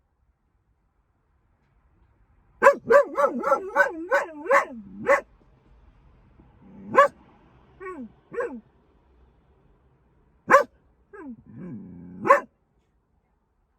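A dog barking: a quick run of about seven barks, then single barks a second or two apart, with a few short falling yelps among them.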